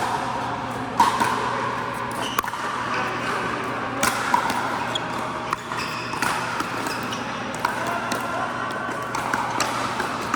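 Pickleball paddles striking the ball and the ball bouncing on an indoor court: sharp pops at irregular intervals, about a dozen in ten seconds, echoing in a large hall over a steady low hum.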